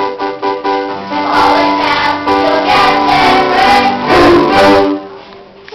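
Young stage performers singing a song with instrumental accompaniment, holding notes; the song ends about five seconds in.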